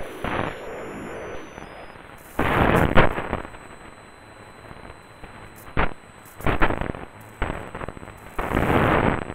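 Lightning static picked up by an AM radio receiver: irregular crashes and crackles of noise over a steady hiss, each one a lightning discharge. A long loud crash comes about two and a half seconds in, a short sharp crack a little before six seconds, and another long crash near the end.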